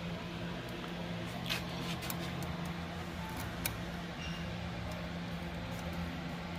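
A few light metallic clicks and ticks as piston rings are turned by hand in the grooves of an aluminium piston, over a steady low background hum.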